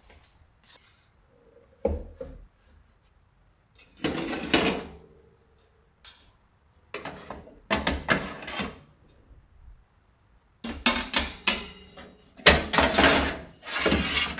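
Wire rack being slid out of a countertop electric oven: repeated bursts of metal scraping and clattering, a short knock about two seconds in and the loudest run near the end.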